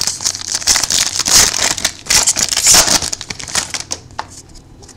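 Wrapper of a trading card pack crinkling loudly as it is torn open and crumpled, a dense crackling rustle that fades out about four seconds in.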